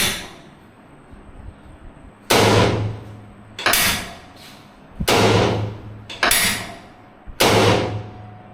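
Five sudden loud knocks in a row, about a second or a second and a half apart, each fading out over about half a second.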